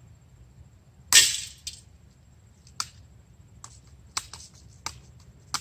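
A BB gun firing once about a second in, a sharp crack with a brief hiss trailing after it, followed by several light, separate clicks and ticks.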